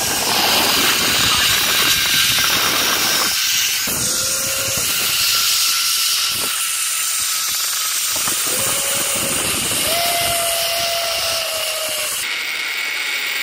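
Zipline tandem pulley running fast along the cable: a loud, steady rushing hiss, with wind rushing over the microphone. A faint thin whine comes and goes a few times.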